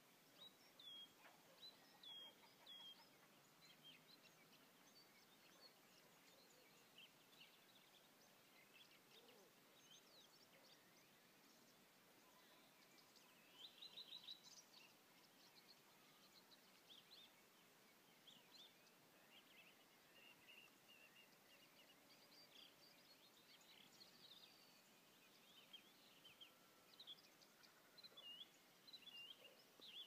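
Faint songbird song: short chirps and phrases from birds in the trees, busiest about halfway through and again near the end, over a quiet rural background hiss.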